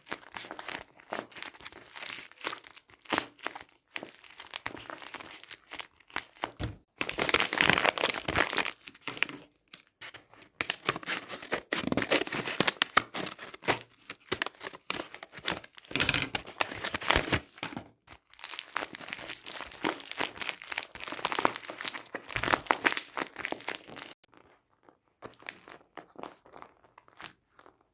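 Plastic blind-bag packaging crinkling and rustling as it is handled and torn open. The rustling stops about 24 seconds in, leaving a few faint clicks.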